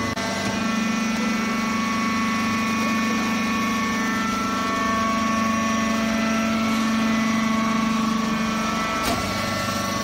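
Hydraulic baling press's power unit running: a steady mechanical hum with a whine of several held tones. A brief sharp click about nine seconds in.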